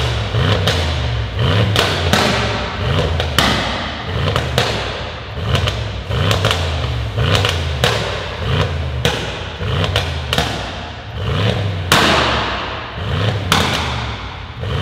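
Mercedes-AMG E63 S twin-turbo V8 with a decat exhaust, revved over and over while parked, about one rev blip a second. Sharp pops and bangs crack from the exhaust between the revs, the loudest about 12 seconds in, echoing in the enclosed workshop.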